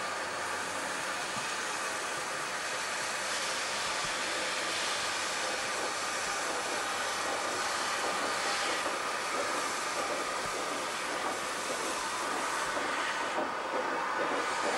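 South African GMAM Garratt steam locomotive moving slowly, with a steady hiss of steam from its front end that swells louder a few times.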